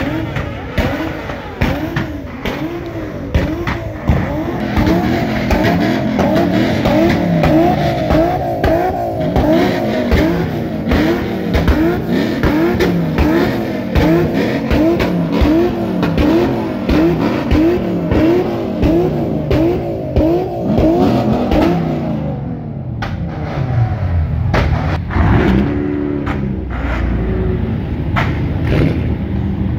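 Car engine revved over and over in quick, even blips, about one and a half a second. About twenty-two seconds in the revs fall away, leaving a lower engine note with one more short rev near the end.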